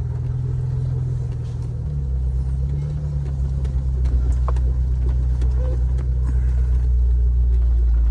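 Jeep engine running with a steady low drone as it creeps along a rough farm trail, with scattered clicks and knocks from the bumpy ground. It grows a little louder in the second half.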